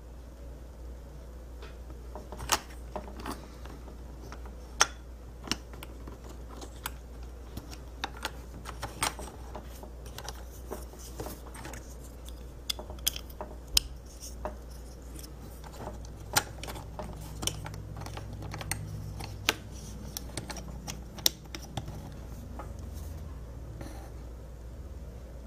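Hard plastic model-kit parts clicking and tapping as they are handled and pressed together, irregular sharp clicks over a steady low hum.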